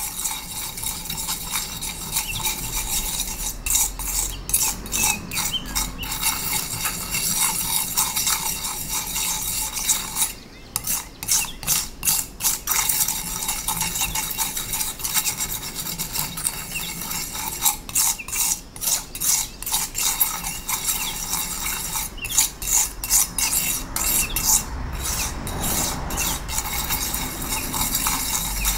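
Steel palette knife scraping and smearing a sticky paste of pigment, gum arabic and honey across a slab in repeated strokes, grinding the pigment finer as the paint is mulled.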